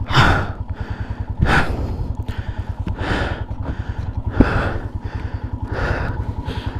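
Heavy breathing close to the microphone, a loud breath about every second and a half, over a motorcycle engine running with a steady, rapid low pulse.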